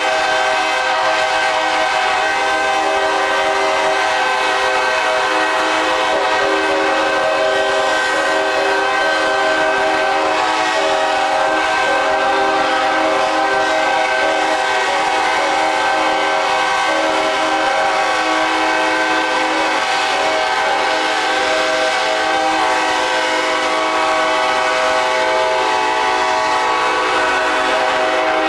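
Several locomotive air horns sounding together in one long, unbroken chord of many overlapping notes, steady in level.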